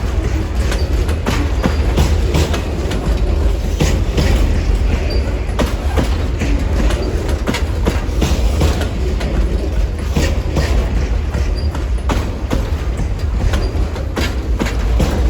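Cars of the Amtrak Auto Train rolling past at speed: a steady heavy rumble with the wheels clicking and knocking over the track many times at irregular spacing.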